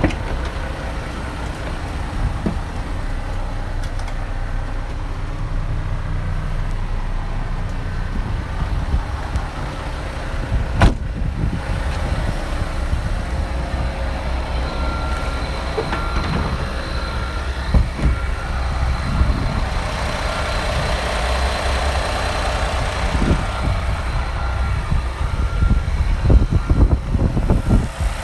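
Diesel engine of a 2014 International TranStar 8600 truck idling steadily, a continuous low hum that grows fuller in the mid-range in the later part as the open engine bay comes close. A single sharp click about eleven seconds in.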